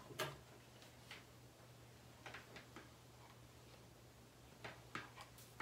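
Near silence with a few faint, irregular clicks and taps from a flat iron being handled and run over the hair.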